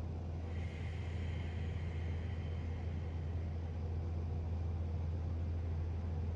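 Gong played softly: a steady low drone, with faint high ringing tones that come in about half a second in and fade over the next two seconds.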